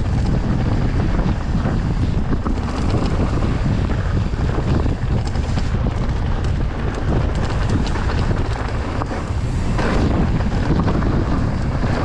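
Heavy wind buffeting the microphone as a mountain bike rolls fast over dry, rocky dirt singletrack, tyres crunching on gravel and the bike rattling over bumps.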